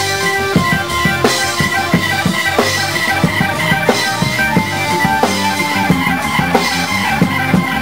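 Live band music: Hammond organ holding sustained chords and notes over a drum kit playing a steady beat.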